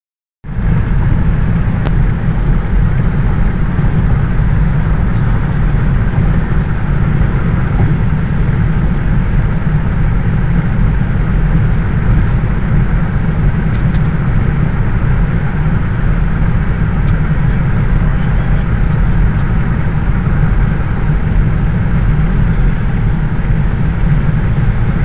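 Road noise heard inside a car cruising at highway speed: a steady rumble of tyres and engine, heaviest in the low end, starting about half a second in.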